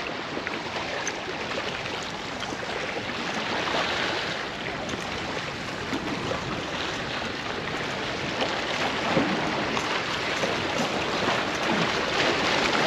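Waves washing and splashing against jetty rocks: a steady rushing noise that gets somewhat louder near the end.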